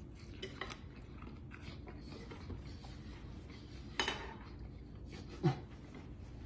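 Faint chewing with small handling noises of cutlery on a plate and a paper napkin. There is a sharp noise about four seconds in, and a short, low, muffled throat sound that falls in pitch about a second and a half later.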